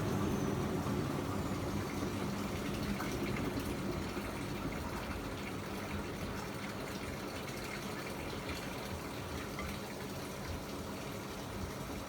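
Miele MedicWash W2585 front-loading washing machine running, with water gushing into or through the drum over a low steady hum.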